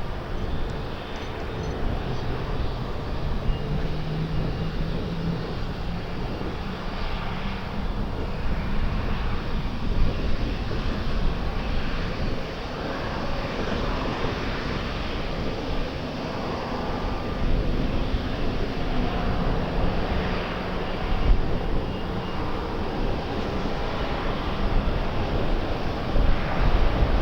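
Aircraft engines running with a steady drone, with wind gusting on the microphone.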